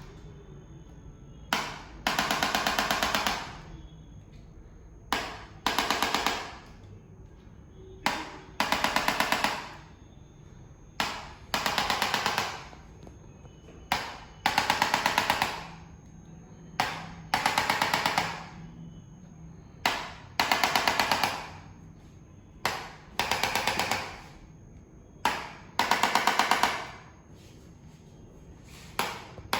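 Chiropractic mechanical adjusting gun delivering thrusts to the spine. Each round is a single tap followed by about a second of rapid clicks, and the rounds repeat roughly every three seconds.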